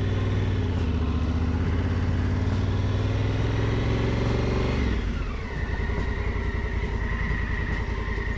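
Honda Africa Twin's parallel-twin engine running steadily under way on a gravel road; about five seconds in the revs drop and settle at a lower steady note.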